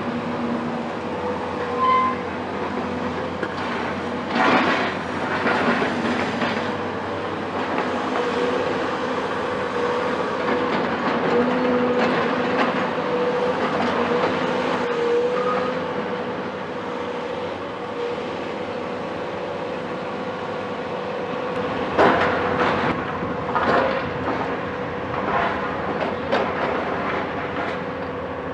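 Caterpillar 374 excavator's Cat C15 diesel running steadily with a constant whine, with crashes and clanks of demolition rubble now and then; the loudest comes about three-quarters of the way in.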